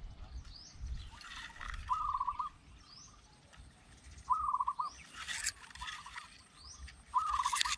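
Zebra doves calling: a short rippling coo-trill repeated about every two seconds, with thin high chirps from another bird between the calls. A few bursts of rustling noise come in, the loudest in the middle and at the end.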